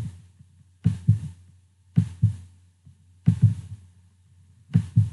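Pairs of soft, low thumps about a fifth of a second apart, one pair every second or two at uneven spacing, over a steady low hum.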